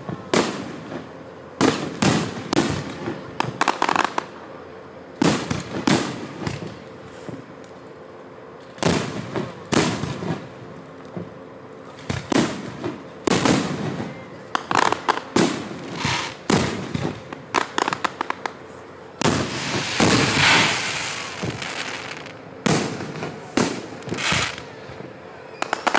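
Aerial firework shells bursting in a rapid series of sharp bangs, often several in quick succession, with a sustained hiss lasting about two seconds roughly twenty seconds in.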